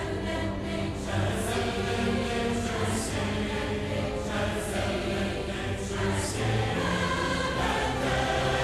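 Background choral music: a choir singing long held chords, with soft sung consonants at intervals.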